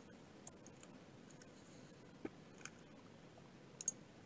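A few faint, scattered clicks of a computer mouse and keyboard, with near-silent room tone between them.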